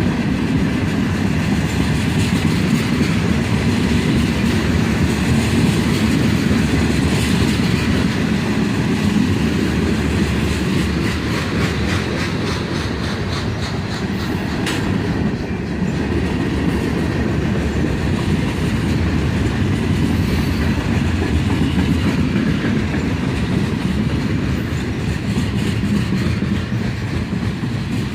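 A CSX manifest freight train rolling past at speed. Its cars make a steady loud rumble of steel wheels on rail, with repeated clickety-clack as the wheels cross rail joints.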